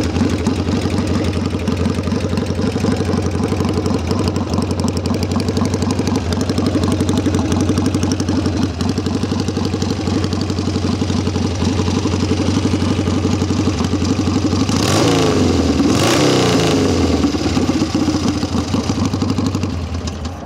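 1970 Triumph 650 parallel-twin engine idling through short exhaust pipes after a first-kick start. It is blipped twice about three-quarters of the way through, the pitch rising and falling, and cuts off at the very end.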